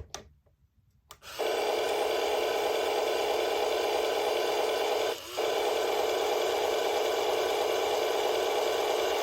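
Battery-powered toy farm tractor making its rumbling engine sound: a click about a second in, then a steady, buzzy rasping rumble that breaks off briefly near the middle and carries on.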